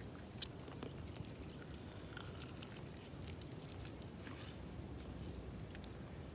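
Faint, scattered small ticks and patters of hands squeezing lime halves, juice dripping onto a chopped pork salad, over a low steady background.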